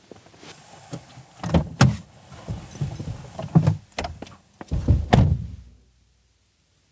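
A series of heavy, low thumps and knocks, some in quick pairs, over a faint rumble, cutting off suddenly about six seconds in.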